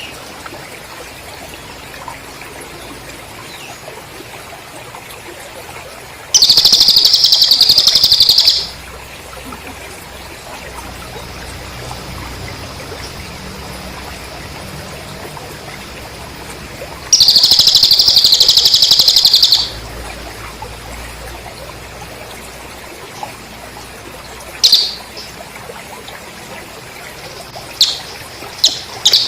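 Recorded Cililin bird song with crickets: two loud, high, rapid trills of about two seconds each, a faint steady high trill in between, and a few short sharp chirps near the end, over a low hiss.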